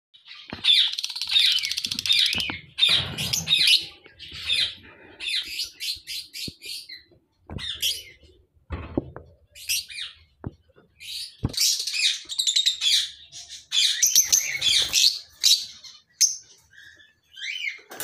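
Caged lovebirds chattering: runs of high-pitched chirps and squawks coming in bursts, with a few short dull knocks in between.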